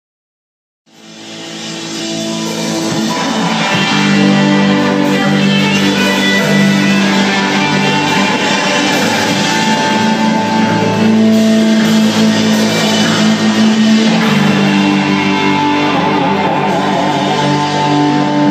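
Rock band playing live with guitar, starting out of silence about a second in and swelling up to full loudness over the next few seconds.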